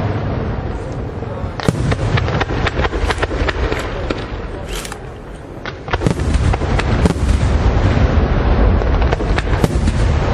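Aerial fireworks display: a rapid string of sharp bangs from bursting shells over a continuous low rumble. There is a short lull about five seconds in, then a denser, louder barrage.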